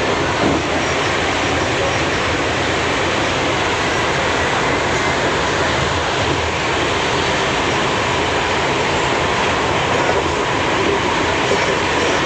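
A moving passenger train, heard from inside a coach: a steady, loud running noise of wheels on the rails and the carriage rattling.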